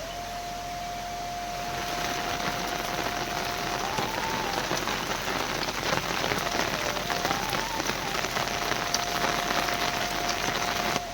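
Heavy rain falling, a dense hiss full of fine drop patters, growing louder about two seconds in. A thin melody of long single notes plays softly over it.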